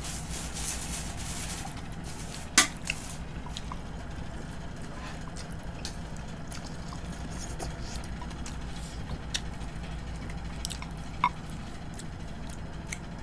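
Chopsticks clicking and clinking against ceramic bowls, with one sharp clink about two and a half seconds in, and the wet sounds of rice noodles in curry being slurped and eaten, over a low steady hum.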